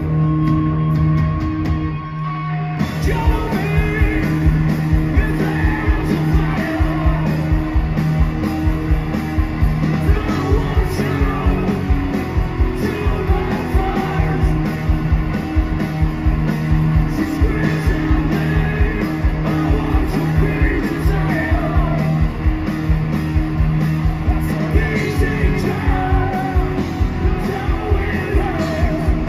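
Post-hardcore band playing live and loud: distorted electric guitars, bass and fast, hard-hit drums under sung and yelled vocals. The band drops out briefly about two seconds in, then comes back in full.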